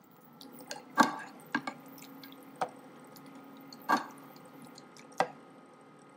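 A slotted spatula stirring thick chicken masala in a nonstick pot, the sauce squelching. Several knocks and scrapes against the pan's side, the loudest about a second in and near four seconds in. A faint steady hum runs underneath.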